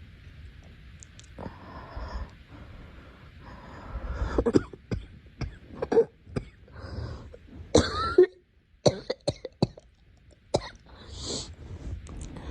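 A girl coughing: breaths at first, then a run of short, sharp coughs starting about four seconds in, the loudest near the middle.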